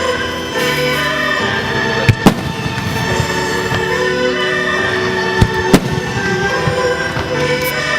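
Aerial firework shells bursting with sharp bangs, two quick pairs about two seconds and five and a half seconds in, over steady music.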